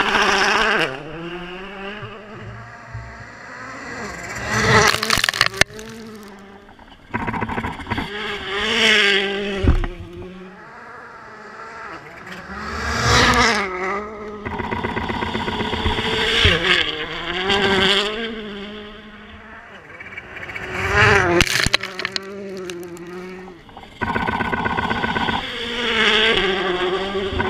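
Volkswagen Polo R WRC rally car's turbocharged four-cylinder engine revving hard and dropping back again and again through gear changes and corners, with sharp cracks at several moments.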